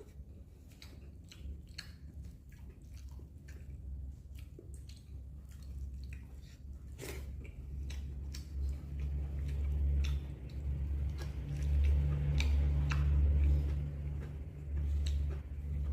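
Close-up chewing and biting of a person eating, with many short wet clicks and smacks. A low rumble grows in the second half and becomes the loudest sound.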